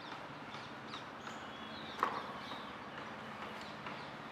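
Faint outdoor ambience of scattered short bird chirps over a steady low background hum, with one sharp click about two seconds in.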